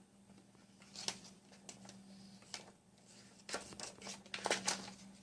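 Paper rustling and short clicks from a hand-turned EK Tools paper crimper as paper is fed between its rollers, coming thicker and louder in the second half. The crimper tends to stick and not turn with paper in it.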